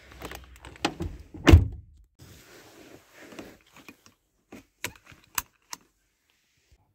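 Car door being pulled shut with a heavy thunk about a second and a half in, after some smaller knocks, then a few sharp clicks as a seatbelt tongue is pushed into its buckle.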